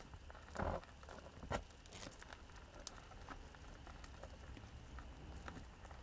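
Faint, scattered ticking and scratching of Christmas beetles' clawed legs scrabbling on a clear plastic tub, with a couple of soft rustles in the first two seconds.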